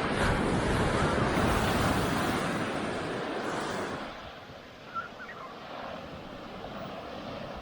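A surf wave breaking on the beach and rushing up the sand. It is loud for the first four seconds, then eases to a softer wash.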